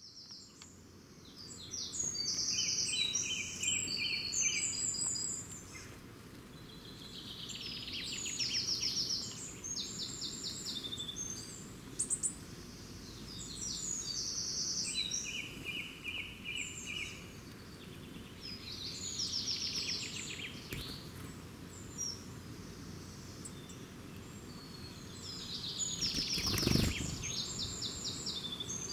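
Songbirds singing: short phrases of fast, evenly repeated high notes, one after another with brief pauses, over a steady low background rumble. A short dull thump comes near the end.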